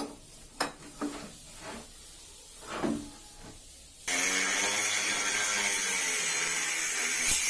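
A few light knocks and a short scrape, then about four seconds in an electric power tool's motor starts abruptly and runs steadily at high speed with a whine and hiss. A sharp knock comes near the end.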